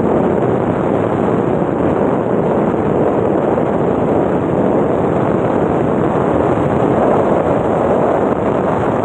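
Steady, loud wind rush buffeting the phone's microphone as it is held out of a vehicle moving at speed, mixed with road noise.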